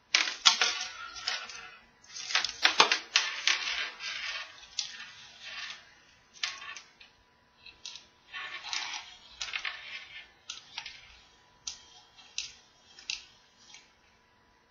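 Red plastic toy tape measure being handled as its tape is fed back into the case: an irregular run of plastic clicks and short rasping scrapes, with brief pauses.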